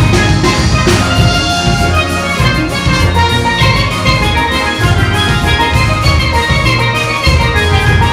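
Steel pan band playing a lively calypso with a drum kit, many pans ringing out melody and chords over a pulsing bass line, backed by an orchestra.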